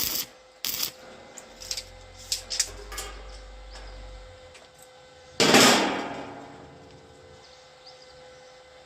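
Steel parts knocking and clanking as they are handled, then one loud metal clang about five and a half seconds in that rings and dies away over about two seconds.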